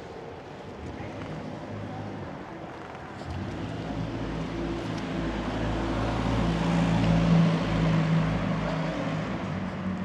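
A large vehicle passing close by: a low rumble with a steady hum that swells from about three seconds in, is loudest around seven seconds, then eases off.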